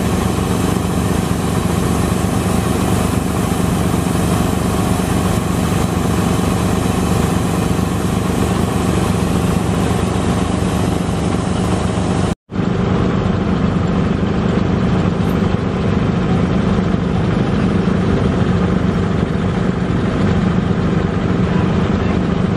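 Small portable petrol engines running steadily, driving an air compressor: a constant mechanical drone that drops out for an instant about twelve seconds in.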